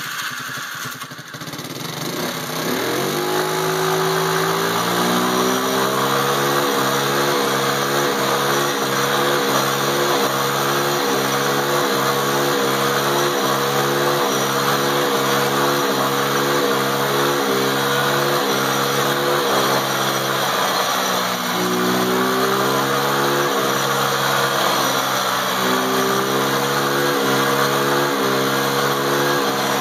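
Small 50cc ATV engine revving up and held flat out against its rev limiter in a burnout, the rear wheels spinning on wet pavement. The note holds steady with a regular stutter from the limiter cutting in. It dips briefly twice in the later part and climbs back each time.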